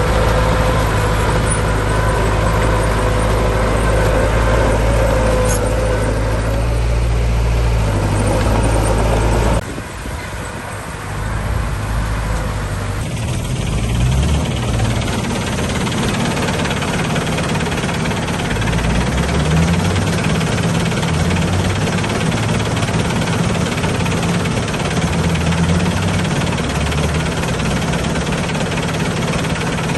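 Heavy machine diesel engine running steadily. About ten seconds in the sound cuts abruptly to another engine whose pitch rises and falls as it works.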